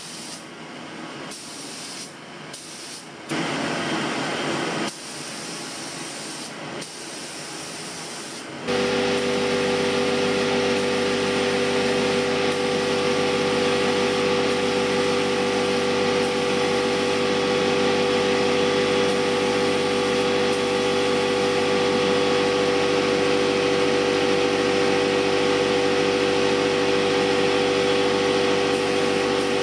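Spray gun hissing in short bursts as paint is laid on. About nine seconds in, a loud steady electric motor hum starts abruptly and runs on under the hissing: the shop air compressor kicking on.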